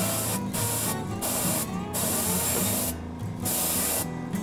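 Airbrush spraying paint in several short bursts: a hiss that starts and stops as the trigger is pressed and released.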